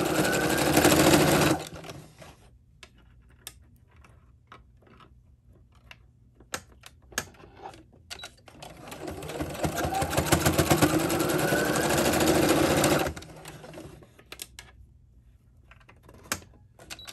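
Electric domestic sewing machine sewing a straight stitch, stopping abruptly about a second and a half in. A few light clicks and taps follow, then the machine starts again with a rising whine as it speeds up, runs for about four seconds and stops, followed by more clicks.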